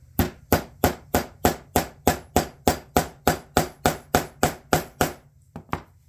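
Hammer striking a rivet setter to set rivets in leather: a steady run of about sixteen even taps, roughly three a second, then two lighter, quicker taps near the end.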